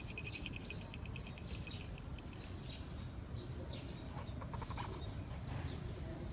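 Small birds chirping: a fast run of short high chirps in the first second and a half, and another quick trill about four and a half seconds in, over steady low background noise.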